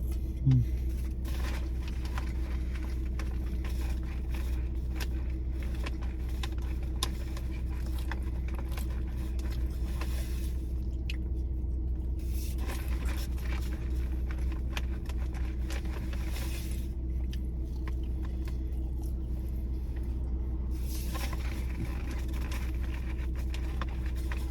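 Mukbang eating sounds, with chewing and rustling of food packaging coming and going, over a steady low hum.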